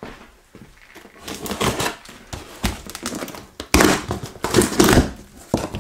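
Clear packing tape being torn off a large cardboard shipping box and the cardboard flaps pulled open: crackling rips of tape and cardboard rustling, with the sharpest, loudest rips about four and five seconds in.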